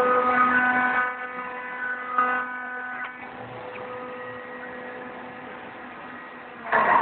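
CNC cutting machine running, its motors giving a steady humming whine made of several pitches that swell and shift in short stretches as the machine moves. A loud noisy rush comes near the end.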